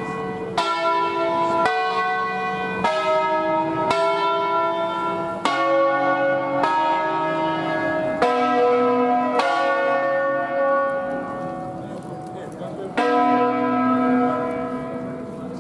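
A five-bell Ambrosian peal of bronze church bells, cast by the Barigozzi brothers and tuned in B, swinging in their wheels and rung by rope. The bells strike about once a second with changing pitches, each bell's tone ringing on under the next. Near the end the strikes pause for about two seconds, then one more bell rings out and fades.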